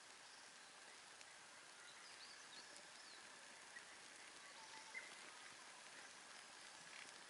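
Near silence: faint outdoor ambience with a steady hiss and a few faint bird chirps about two to three seconds in.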